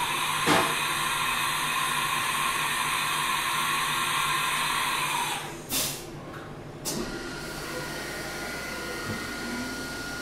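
CNC vertical machining centre changing tools between the chamfer mill and the reamer. A loud hiss lasts about five seconds, with a clunk near the start and another as it stops. Then a quieter steady high whine follows as the spindle runs with coolant spraying.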